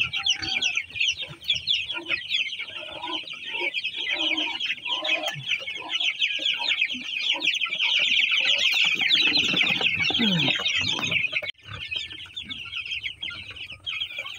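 A crowded brood of 12-day-old broiler chicks peeping continuously, a dense chorus of many short, high cheeps overlapping. There is louder rustling about two-thirds of the way through, and the chorus dips briefly near the end.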